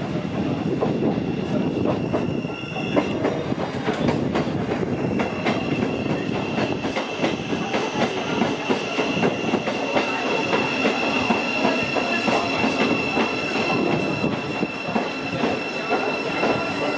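Great Northern electric multiple unit running slowly past the platform, wheels clicking over the rail joints. A steady high whine sets in about five seconds in.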